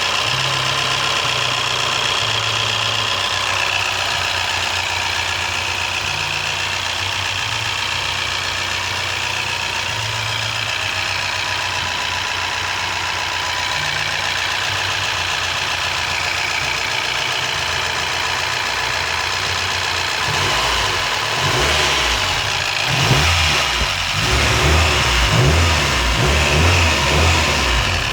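2001 Toyota Corolla engine idling steadily, with a small recurring noise that the owner suspects is valve tapping or the timing chain. About twenty seconds in, the engine is revved a few times and runs louder and rougher.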